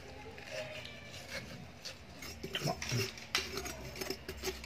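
Metal spoon scraping and scooping the wet flesh out of a watermelon shell: a rasping scrape with a few sharper knocks of the spoon near the middle.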